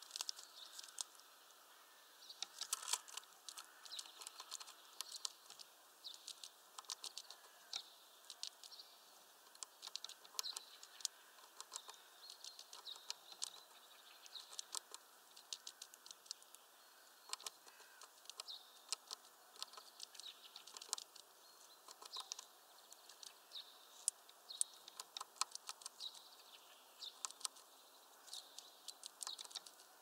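Grey-headed woodpecker pecking at a fat cake in a wire feeder: irregular runs of light, sharp taps, several a second in bursts with short pauses between.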